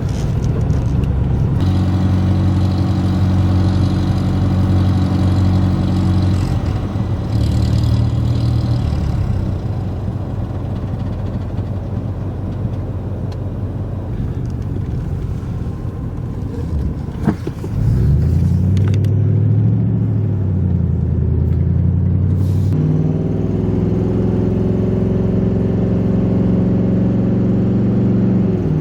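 Motor vehicle engine running throughout, its note shifting a few times as the revs change, with a single short knock near the middle.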